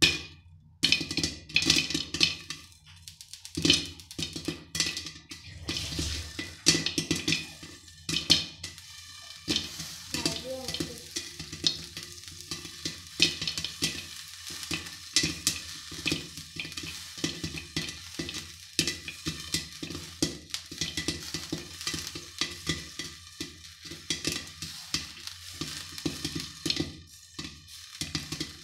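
Popcorn kernels popping in hot oil in a steel kadhai under a glass lid: a rapid, irregular stream of sharp pops over sizzling oil.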